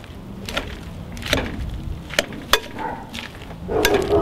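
Metal salad tongs tossing dressed lettuce in a glass bowl, clicking and scraping against the bowl at irregular intervals. A short flurry of clatter near the end.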